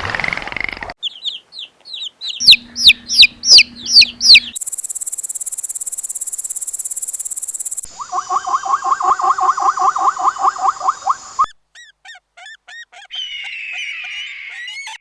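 A run of different animal calls, each cut sharply into the next. First come chirps and then loud repeated calls. A steady high hiss follows for about three seconds. Then comes a fast, evenly repeated pulsing call for a few seconds, and finally more short chirps and a warbling bird-like call.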